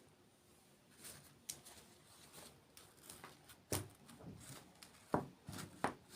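Close-miked eating sounds: soft chewing and crackling, with three sharper crunches in the second half.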